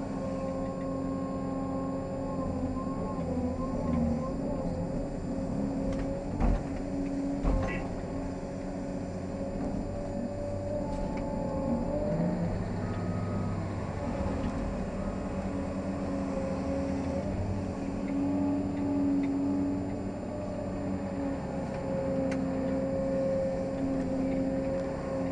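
Cat 385C excavator's diesel engine and hydraulic pumps running under load, heard from inside the cab, a steady whine that dips and rises in pitch as the machine digs and swings. Two sharp knocks about a second apart come a quarter of the way in.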